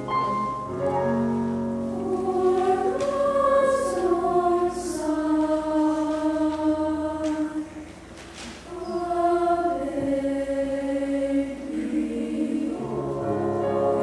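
Children's choir singing in parts, holding long sustained notes, with a brief lull between phrases about eight seconds in.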